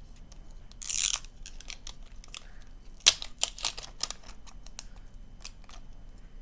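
Plastic wrapping of a Mini Brands capsule crinkling and crackling as it is peeled apart by hand. There is a short rip about a second in and a sharp snap about three seconds in.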